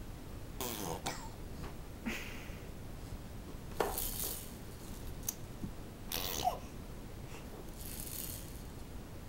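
A baby's short vocal sounds, about five separate ones: a falling coo or squeal near the start, then several breathy, blowing noises spaced a couple of seconds apart.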